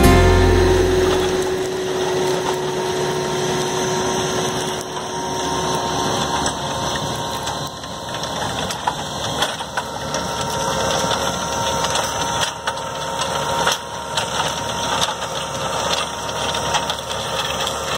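Tractor engine running as it pulls a Baldan ASDA subsoiler through a stubble field, with steady crackling and crunching of soil and straw. Music fades out in the first second or two.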